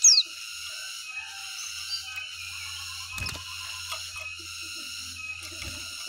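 Caged white-eye (pleci) giving one sharp, quickly falling whistled note at the very start, then a few faint short chirps, over a steady high-pitched background drone. A single knock about three seconds in.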